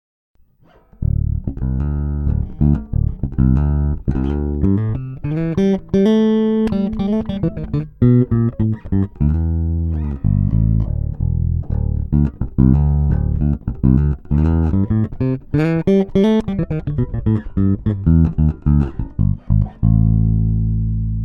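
Ibanez SR-3006E six-string electric bass played solo, recorded direct with no effects through its Bartolini pickups and NTBT-918 preamp. It plays fast runs of plucked notes with a couple of sliding pitch glides, then ends on a low note left ringing and slowly fading.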